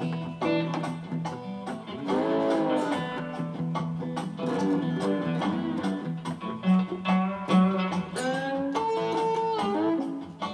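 A slow blues played on guitars: an acoustic guitar holding a low, steady rhythm under a slide guitar whose notes glide up and down between pitches.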